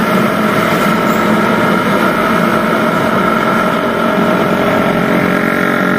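Suzuki Satria FU's single-cylinder four-stroke engine running steadily at cruising speed, heard from the rider's seat together with a constant rush of wind and road noise.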